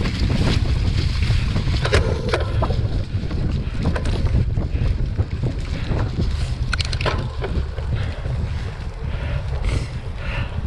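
Wind buffeting the microphone while a cyclocross bike rattles over bumpy grass and dirt, with scattered clicks and knocks.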